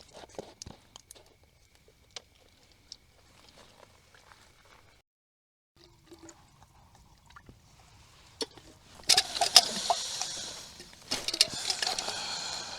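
Water streaming from a water bag hung as a gravity feed into a container, in two runs of about two seconds each starting about nine seconds in. Before it come faint clicks of handling.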